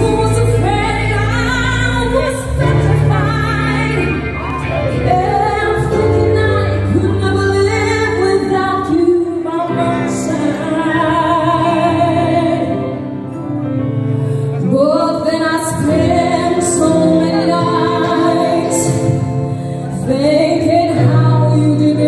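Live band music: a woman singing lead over violin, electric guitar and bass, with long held bass notes.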